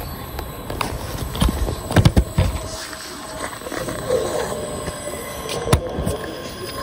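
Passengers' footsteps on the platform close to the microphone, with a few heavy thumps about two seconds in. An approaching electric train starts a faint brake squeal about four seconds in.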